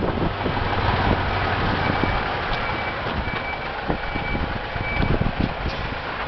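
A diesel concrete mixer truck's engine running steadily. From about two seconds in, a reversing beeper sounds about every 0.7 seconds over it.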